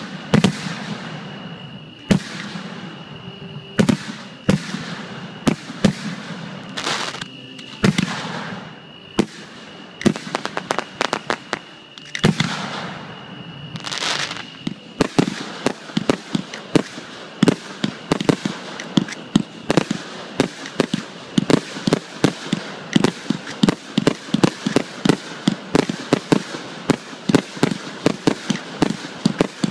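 Aerial fireworks shells bursting, sharp bangs a second or two apart at first; from about halfway through they come in a rapid barrage of several bangs a second.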